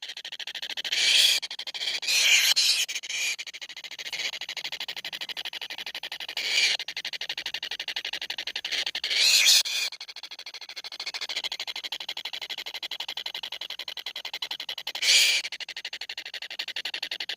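Kingfisher nestlings in the nest giving short, harsh, hissing begging calls, about five separate bursts, over a steady faint rasping background.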